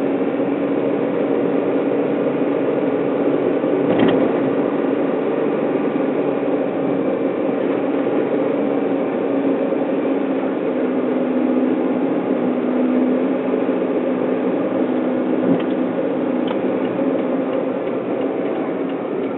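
Car engine and tyre noise heard from inside the cabin while driving, a steady hum that dips slightly in pitch around the middle, with one sharp knock about four seconds in.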